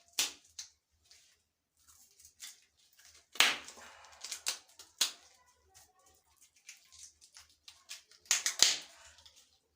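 Plastic parts of an electric shower head being twisted and worked loose by hand: scattered clicks and scrapes, with a louder scrape a few seconds in and another near the end. The part is stiff and hard to get off.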